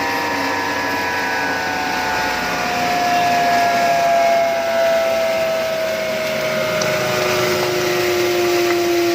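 FFC-45 disk mill grinder running, a steady mechanical whirr with a whine that slowly falls in pitch.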